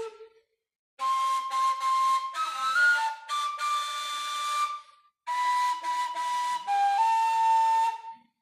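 Kurai, the Bashkir end-blown reed flute, playing a melody in two breathy phrases of held and stepping notes, with short silent breaks between phrases: one just before the first second, one near five seconds and one near the end.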